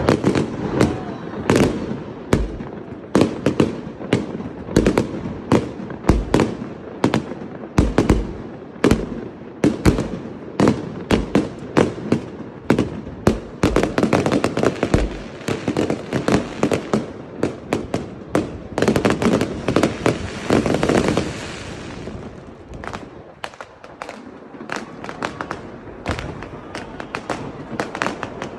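Aerial fireworks bursting in quick succession, several sharp bangs a second over a continuous crackle. About two-thirds of the way through, a dense steady hiss cuts off suddenly, and after it the bangs come fewer and quieter.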